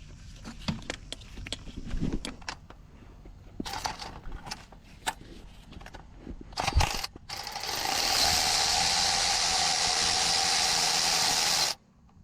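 Ratchet wrench clicking in short bursts on an intake manifold bolt of a Ford engine. Near the end a power tool runs steadily at one pitch for about four seconds and cuts off suddenly.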